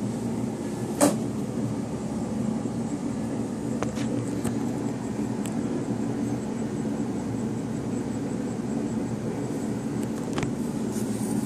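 Steady low hum of a running fan, with a sharp click about a second in and a few fainter clicks later.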